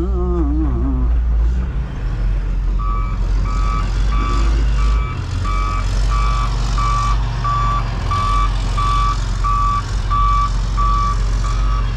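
Heavy-equipment reversing alarm beeping at an even pace, about three beeps every two seconds, starting about three seconds in, over the low steady running of a pickup truck's engine.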